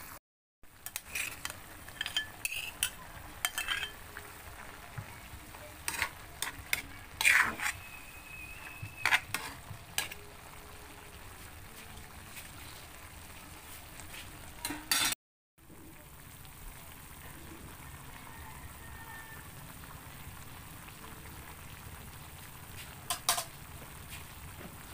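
Food sizzling steadily in a frying pan while being stirred, with a utensil clicking and scraping against the pan now and then, most often in the first half.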